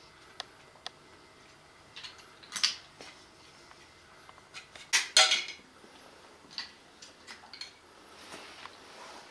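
Small hard plastic toy pieces clicking and clattering as a toddler plays with them, with a louder clatter about two and a half seconds in and the loudest about five seconds in.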